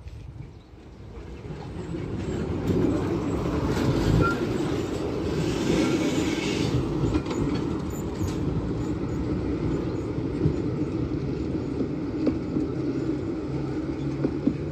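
71-619KT tram pulling away and passing by, its wheels running on the rails. The sound grows louder over the first two seconds, then runs steadily, with scattered clicks.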